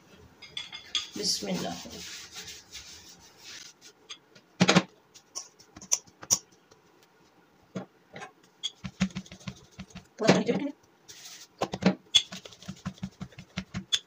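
Wooden rolling pin rolling paratha dough out thin on a board: a few separate knocks, then from about two-thirds of the way in a steady run of soft thumps and rubbing, about three or four a second, as the pin goes back and forth.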